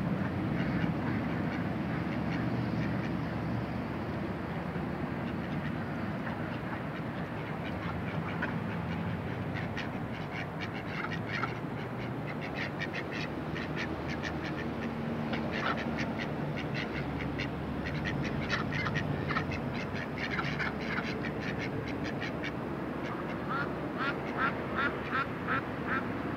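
Domestic ducks quacking in several runs of rapid calls, over a steady low rumble.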